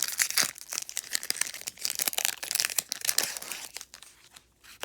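Foil wrapper of a Pokémon booster pack being torn open and crinkled: dense rapid crackling that dies away about a second before the end.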